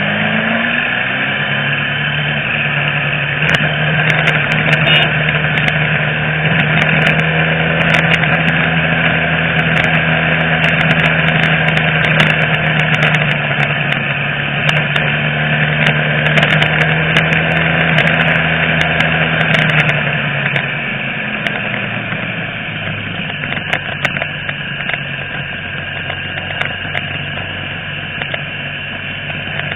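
Motorcycle engine running steadily at a constant cruising pitch, with wind noise rushing over the microphone. About twenty seconds in the engine note falls away and the sound gets quieter, as when the throttle is eased off.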